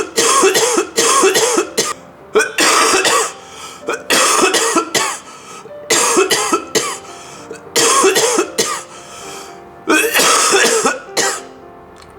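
A person coughing violently in about six fits, each a run of quick harsh hacks, with soft background music in the gaps between them.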